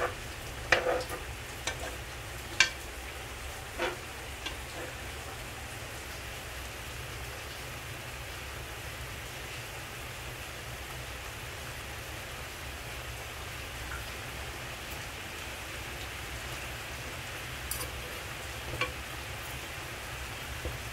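Chicken cooking in a pan, a steady sizzling hiss, with a few short knocks of a utensil against the pan in the first few seconds and twice more near the end.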